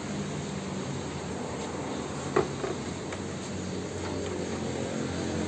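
MDF picture boards handled in a styrofoam box, with one short knock about halfway through, over a steady low background hum.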